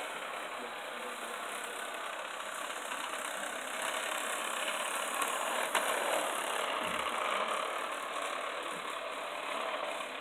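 Hornby Class 395 model train running on its track: a steady whirring rattle of motor and wheels on rails that gets louder from about four seconds in as the train passes close by, with a single sharp click near the middle.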